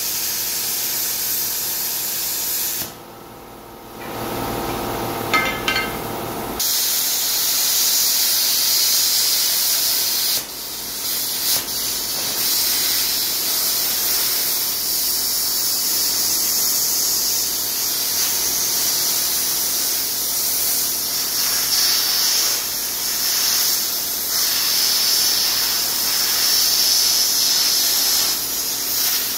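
Plasma cutter slicing through a steel truck frame: a loud, steady hiss of the cutting air and arc. It stops briefly about three seconds in and starts again a few seconds later.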